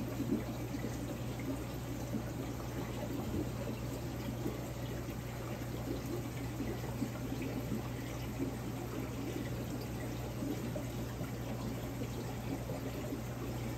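Large overflow aquarium's circulating water: a steady pouring and trickling of water stirring the surface full of air bubbles, over a constant low hum.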